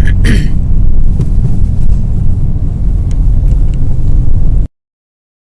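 Oldsmobile Alero driving, heard from inside the cabin: a steady, loud low engine and exhaust rumble. It cuts off suddenly near the end.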